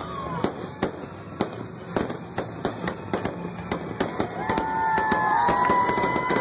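Fireworks display: rapid bangs and crackling from shells bursting overhead. Over the last two seconds several long, steady high-pitched tones join in.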